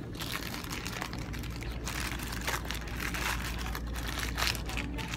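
Steady low background hum with scattered clicks and rustles throughout.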